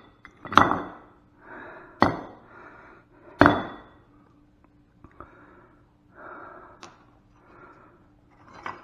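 Rusty iron and brass pieces of a broken-up water pump clinking on a concrete floor as they are picked up and set down: three sharp clinks in the first few seconds, then lighter ones. Between the clinks a person breathes hard.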